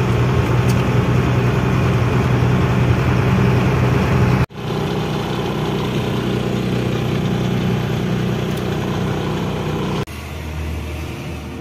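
Goods truck's diesel engine running steadily under load as the truck climbs a hill. The sound cuts off abruptly about four and a half seconds in and starts again, then drops quieter and lower about ten seconds in.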